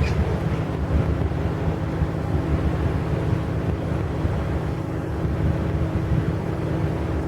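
Wind buffeting the microphone in a heavy low rumble, with a faint steady ship's engine hum underneath.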